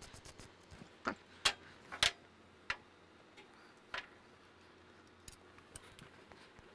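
A ratchet clicking quickly for a moment at the start, then a handful of separate sharp metallic clicks and knocks from hand tools and bolt hardware being handled, the loudest about one and a half and two seconds in.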